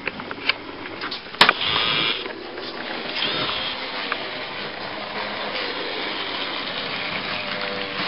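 Steady whirr of a small electric motor, with a sharp click about one and a half seconds in and lighter clicks near the start.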